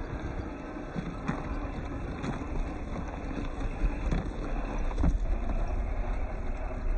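Electric MST CFX radio-controlled scale crawler driving over rough ground: a steady low rumble with about four sharp knocks spread through it as the chassis and wheels hit the terrain.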